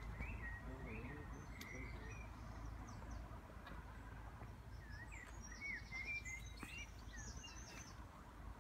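Small birds chirping in short repeated phrases, in a first spell and again about five seconds in, over a steady low background rumble.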